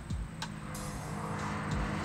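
2022 Toyota GR 86's 2.4-litre flat-four engine running as the car approaches on a race circuit, its steady note growing louder toward the end.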